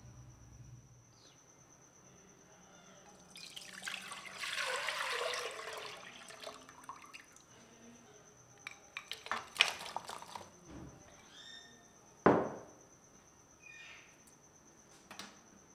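Liquid poured into a metal cooking pot for about three seconds, followed by a few light clicks and then a single sharp knock, the loudest sound, as ingredients go into the pot.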